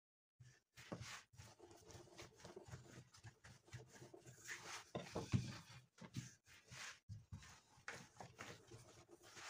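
Faint rubbing and soft knocks of a long thin wooden rolling pin rolled back and forth over dough on a floured silicone pastry mat, the dough wrapped around the pin and pressed out under the palms. The strokes are irregular, loudest about five seconds in.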